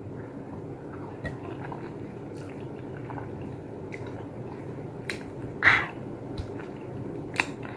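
Scattered sharp lip smacks and tongue clicks from tasting a sour-sweet piece of stone fruit, with one louder short wet mouth sound about two-thirds through, over a faint steady background hum.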